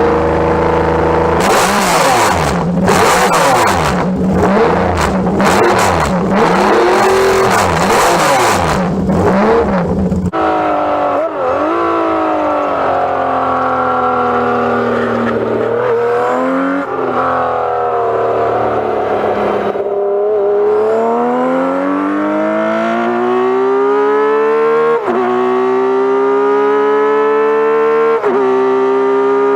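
Kawasaki KZ1300 inline-six engine and exhaust. A brief steady idle gives way to uneven revving, buffeted by wind noise. Then the bike accelerates hard through the gears, its note climbing and dropping back at each of several upshifts.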